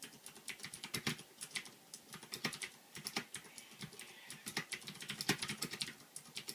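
Typing on a Ducky Shine II mechanical keyboard with Cherry MX Blue switches: a fast, uneven run of sharp key clicks, considerably loud.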